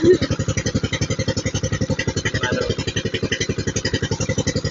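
A small boat's engine running steadily, chugging with an even rapid pulse of about a dozen beats a second.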